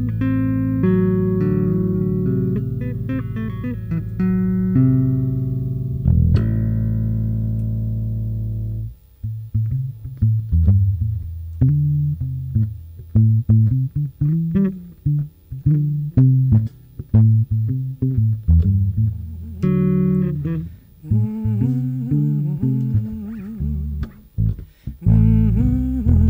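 Live band playing a slow blues intro: held keyboard chords for the first several seconds, then a plucked bass line of short separate notes, with a wavering melody line joining in near the end.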